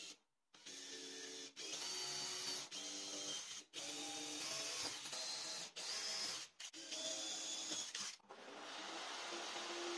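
Small electric motor whirring in short runs, each at its own steady pitch, stopping and starting several times before settling into a steadier whir.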